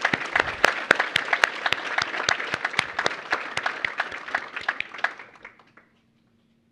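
Audience applauding: many hands clapping together, thinning out and stopping about six seconds in.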